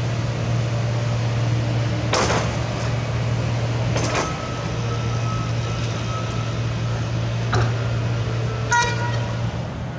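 A heavy machine's engine running steadily at a construction site, with four sharp metallic knocks or clanks spread through; the last one, near the end, rings briefly.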